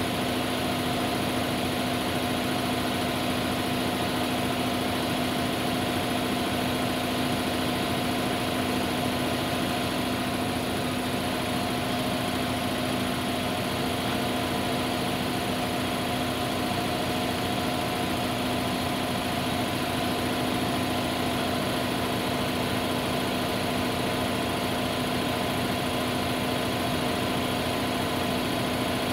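An engine idling steadily: a constant, even hum that holds the same pitch throughout.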